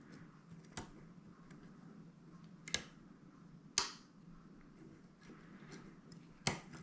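Faint metallic clicks and ticks of a DADA dimple lock pick working the pins of a dimple lock cylinder, with four sharper clicks spread a second or two apart.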